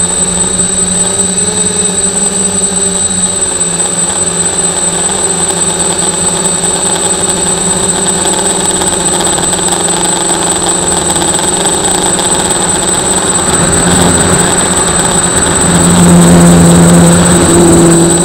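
Multirotor drone's motors and propellers whining steadily, heard from the drone's own on-board camera, the pitch stepping slightly as the motors change speed and getting louder for a few seconds near the end.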